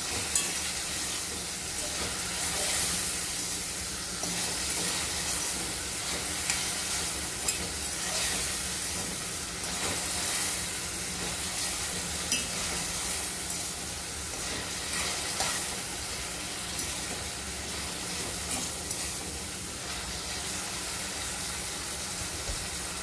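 Sliced onions, sweet peppers and tomatoes sizzling steadily as they sauté in oil in a pot. A fork clinks against the pot now and then as it stirs them.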